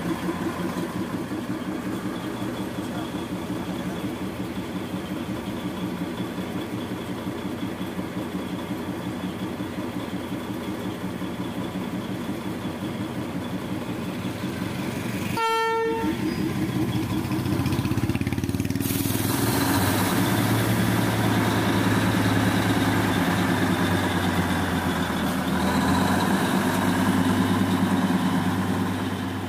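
Darjeeling Himalayan Railway's NDM6 diesel-hydraulic locomotive No. 600 running slowly, its engine a steady throb. After a brief break about halfway, the engine is louder and deeper, with a steady hiss over it.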